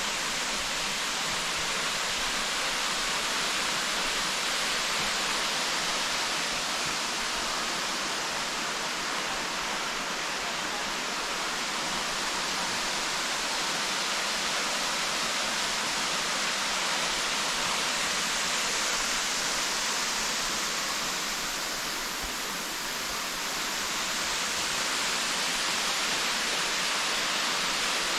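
Steady rushing of falling water from Sheoak Falls, a waterfall. It stays even throughout, easing slightly about three-quarters of the way through.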